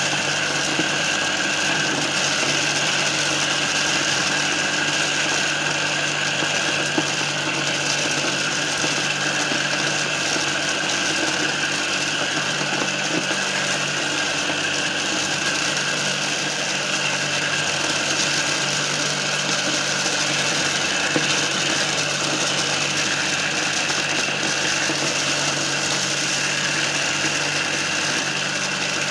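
Homemade mini corn sheller, belt-driven by a reused water-pump electric motor, running steadily with a hum and the rattle of kernels being stripped from cobs fed into it, with a few small clicks.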